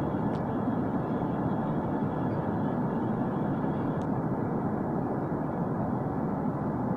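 Steady, even rush of an Embraer 145 regional jet in flight after takeoff, with its two rear-mounted Rolls-Royce AE 3007 turbofans running at climb power. A faint high steady tone runs through it, with a few faint ticks.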